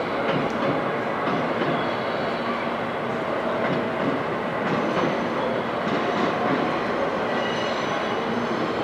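Kitakinki Tango Railway 700-series diesel railcars moving slowly into the station: a steady rumble of engine and wheels, with a faint high wheel squeal about five seconds in and again near the end.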